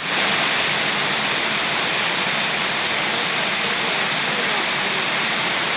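Heavy storm rain pouring down in a steady, unbroken hiss.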